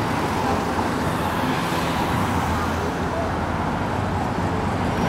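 Steady road traffic on a city boulevard: car engines running and tyre noise, with a low engine hum underneath.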